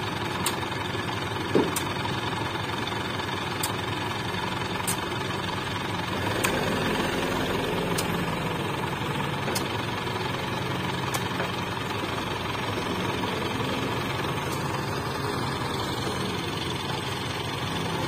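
Heavy construction machine's diesel engine idling steadily, with one sharp knock about one and a half seconds in.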